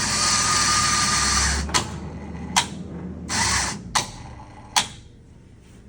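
Coffee vending machine dispensing a test dose of coffee: its dosing motor whirs with a thin whine for about a second and a half and stops, then the mechanism gives several sharp clicks with a brief second whirr between them.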